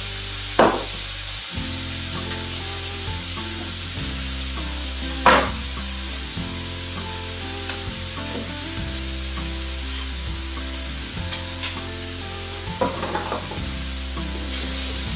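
Shallots, carrots and sauces sizzling steadily in a very hot wok during a stir-fry, with a few sharp knocks along the way.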